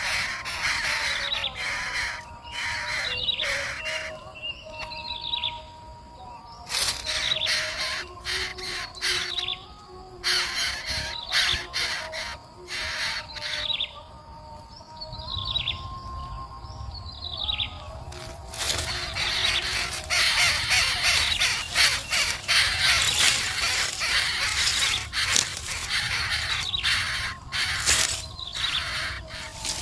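Birds giving short, falling chirps and harsh calls, with bursts of rustling and flapping, over a steady background music drone.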